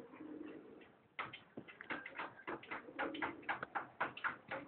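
Domestic pigeons cooing, a low coo at the start and again midway. From about a second in there is a rapid run of short clicks and rustles.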